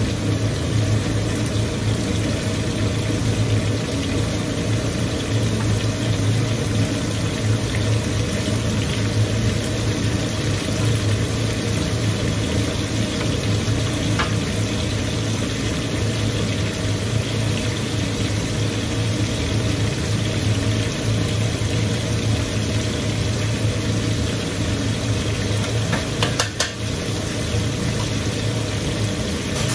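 Lamb steaks sizzling in a roasting tray on a gas hob, a steady noise over a constant low hum, with a few faint clicks near the end.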